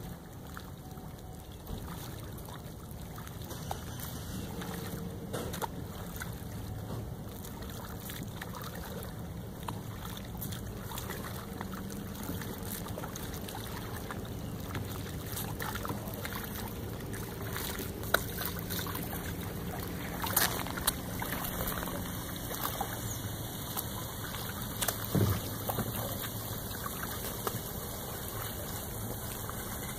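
Kayak paddle strokes in lake water, faint splashing over a steady outdoor hiss, with a few sharp knocks in the second half.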